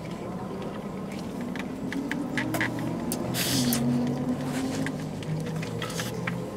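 Low steady hum inside a car, with scattered light clicks and a brief rustle of handling food containers and utensils while eating.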